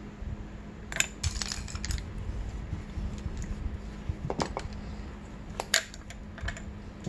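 Light metallic clicks and knocks from engine parts being handled: a quick cluster about a second in, then single knocks later, the loudest near the end.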